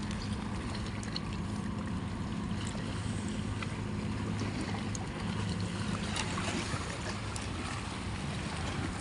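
A steady low engine drone, with a hand scooping through wet mud and shells: small clicks and splashes scattered through it.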